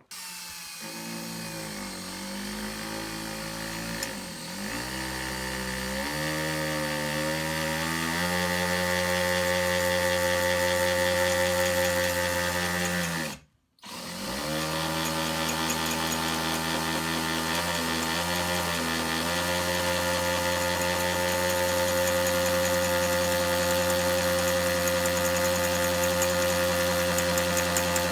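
Electric hand drill running, its motor speed rising and falling under the trigger for the first several seconds before holding at high speed. It stops for a moment about halfway, starts again, dips once more, then runs steady: drilling pilot holes in the Jeep's body.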